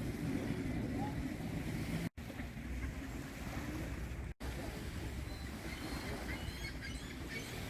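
Steady wind and water noise outdoors by the water, cutting out completely for a moment twice. Near the end, a few faint, short, high bird calls.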